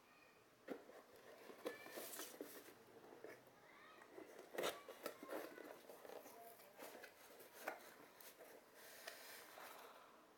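A cardboard shipping box being opened by hand: packing tape slit and the flaps pulled back, giving faint scattered scrapes, taps and rustles of cardboard, the loudest about four and a half seconds in.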